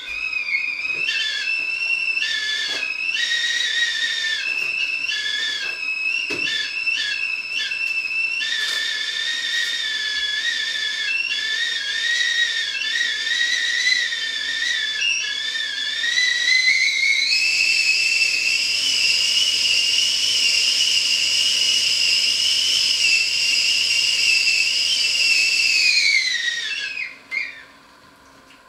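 Stovetop whistling kettle whistling at the boil: a loud, wavering two-note whistle that steps up to a higher, steadier pitch about two-thirds of the way through. Near the end the pitch falls and the whistle stops as the kettle is lifted off the hob.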